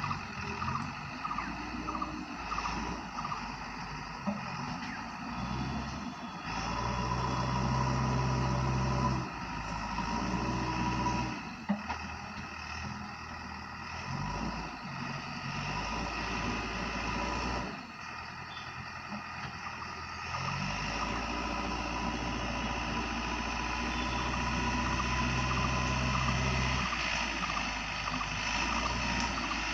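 JCB 3DX backhoe loader's diesel engine working under varying load. It revs up for stretches and eases off briefly about twelve and eighteen seconds in.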